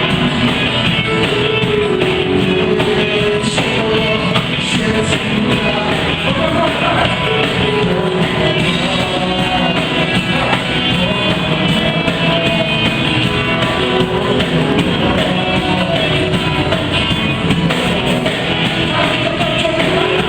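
Live worship band playing an upbeat, rock-style gospel song with singing.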